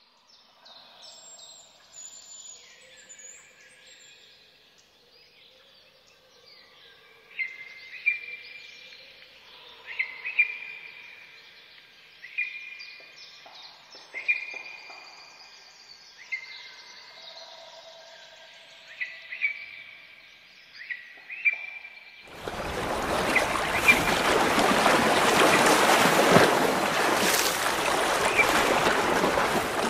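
Birds chirping in a forest, with one sharp call repeated about every two seconds. About 22 seconds in, a loud, steady rush of falling water from a waterfall takes over.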